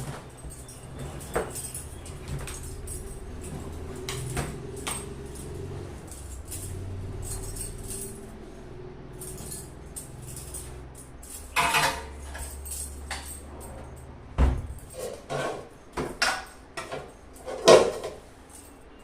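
Washing machine running with a low steady hum and irregular knocks and rattles. The hum stops with a thump about fourteen seconds in.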